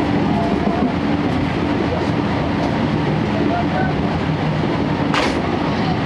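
Interior of a moving 12-series passenger coach: the steady rumble of the wheels on the track mixed with the hum of the Suhafu 12's underfloor diesel generator engine, with passengers' voices faintly under it. A short, sharp noise cuts through about five seconds in.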